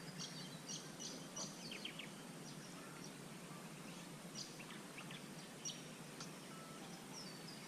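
Birds chirping faintly in short, high notes, a flurry in the first two seconds and more scattered calls later, over a steady low background hiss.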